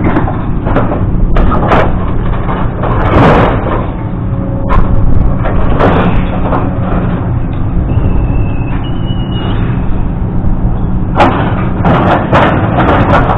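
An engine runs steadily under repeated loud metal bangs and clanks, the sound of scrap metal being handled and unloaded.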